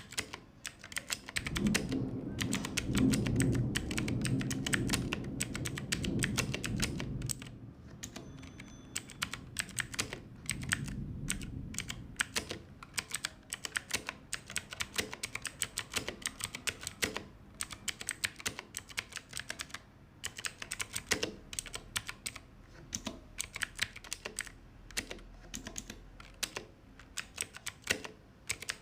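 Continuous fast typing on an Ajazz AK33 mechanical keyboard with clicky blue switches: a rapid, uneven stream of sharp keystroke clicks. A low background rumble sits under the typing from about two to seven seconds in, and briefly again around ten seconds in.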